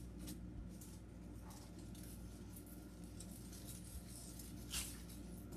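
Faint rustling and crinkling of artificial flower stems and foliage being pushed into a grapevine wreath, with a few short crinkles, the clearest nearly five seconds in, over a steady low hum.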